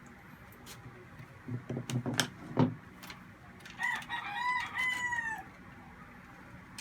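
A rooster crowing somewhere off, one multi-part crow about four seconds in, preceded by a few sharp clicks and knocks of fan parts being handled.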